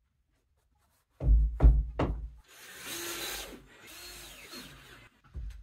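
Three heavy thumps in quick succession, then a couple of seconds of rasping tool noise with a faint steady whine.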